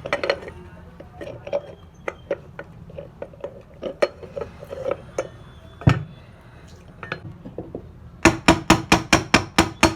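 Metal ceiling-fan parts clinking and knocking as the fan's bottom cover is fitted onto the body, then, a little after eight seconds in, a quick run of sharp hammer taps, about six a second.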